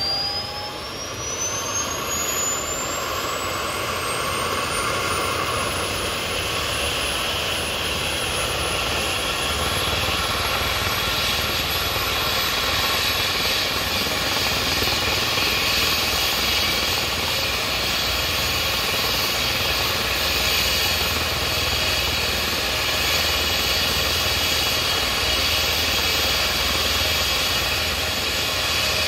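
Rescue helicopter's turbine engines starting up on the ground: a high whine climbs steadily in pitch over the first several seconds as the engines spool up. Under it the steady rush of the engines and rotor grows louder, then holds level.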